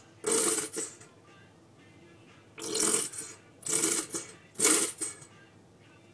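Plastic squeeze bottle of chocolate syrup sputtering as it is squeezed: four short splutters of air and syrup spurting out.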